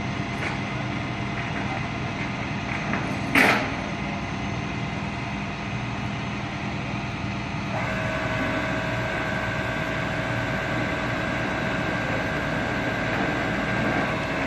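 Vehicle engine idling steadily, with a single sharp knock about three and a half seconds in. About eight seconds in a steady whine joins it and holds.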